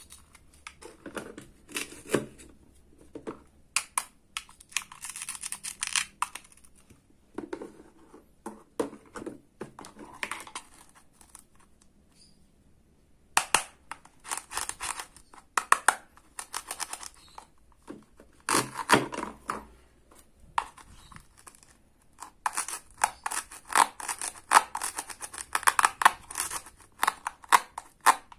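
Toy cutting-set play food pulled apart at its Velcro joins with a wooden toy knife, giving short ripping bursts in several runs, with plastic clicks and taps between them and a brief pause about halfway through.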